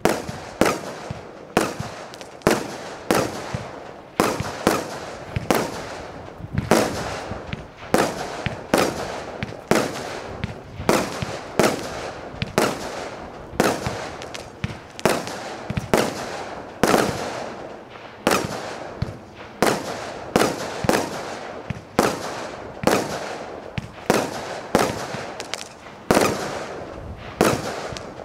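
The Icon 209-shot compound firework cake firing a steady barrage: shots launch and burst about one to two a second, each a sharp bang followed by a short fading tail.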